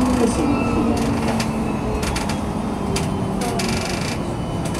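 Tram running along its rails, heard from inside the car: a steady low rumble with scattered clicks and rattles from the wheels on the track, and a short burst of rattling near the end.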